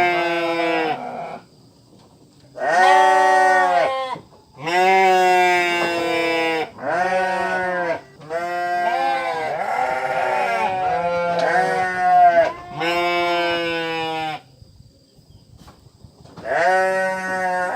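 Repeated long bleats from goats or sheep, about eight wavering calls of one to two seconds each with short pauses between them and a longer pause near the end.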